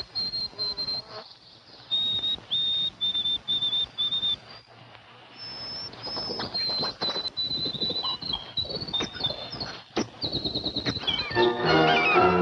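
White-throated sparrow song: clear, high whistled notes, a run of five even notes about two seconds in, then higher and shorter notes ending in a quick series of rapid notes. Music comes in near the end.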